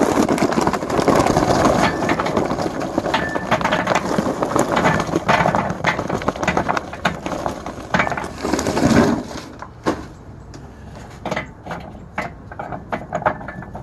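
Charcoal briquettes pouring out of a paper bag into a ceramic kamado grill, a dense clatter for about nine seconds. Scattered clicks follow as the briquettes are shifted around by hand.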